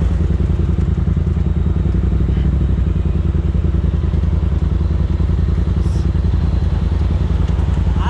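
Polaris RZR side-by-side's engine running steadily at an even pace, heard from inside its open cab.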